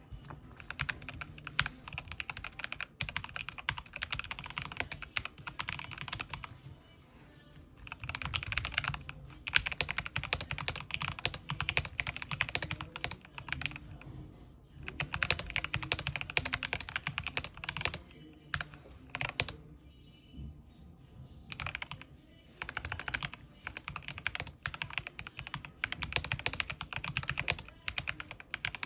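Typing on a Corsair K70 mechanical keyboard: fast runs of key clicks in bursts, broken by a few short pauses.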